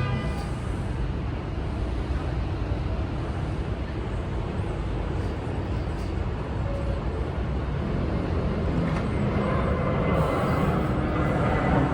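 New York City subway train rumbling on the tracks, the noise growing louder over the last few seconds as a train draws near, with a thin wheel squeal just beginning at the end.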